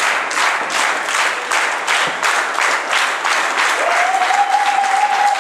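Crowd clapping in a steady rhythm, about three to four claps a second. About four seconds in, one long, high, held cry starts over the clapping.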